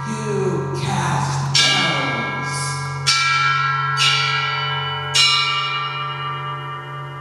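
Music: bells struck about four times, each strike ringing on with a long decay, over a steady low drone. The ringing fades near the end.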